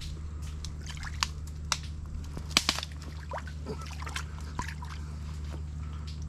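Wet mud squelching and water dripping and sloshing as a hand works down into a flooded mud crab burrow in mangrove mud, with scattered sharp wet clicks, the strongest cluster about two and a half seconds in.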